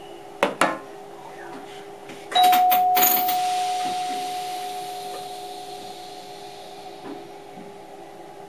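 A bell or gong in the cab of an NS MAT64 electric train strikes once, about two seconds in, with a cluster of clicks. Its single clear tone rings out and fades slowly over several seconds. Two sharp clicks come about half a second in, over a steady hum from the train.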